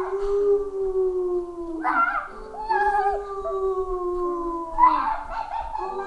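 Howling: long held calls that slowly fall in pitch, a new one starting about every two to three seconds, with several pitches sounding at once.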